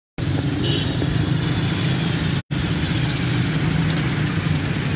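Steady street traffic noise, motorcycle and car engines running close by. The sound drops out for an instant about halfway through.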